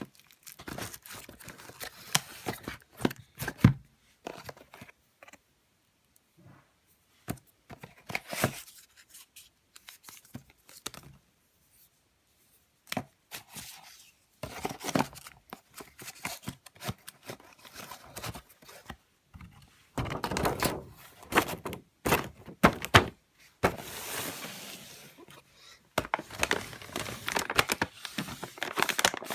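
Firework boxes and their plastic wrapping being handled: bursts of crinkling and tearing broken by knocks as packs are picked up and set down, with short silent gaps in between.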